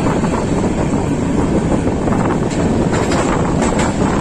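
Express passenger train running at speed, heard from inside a coach: a steady rumble of wheels on rails with wind noise on the microphone, and a few light clicks in the second half.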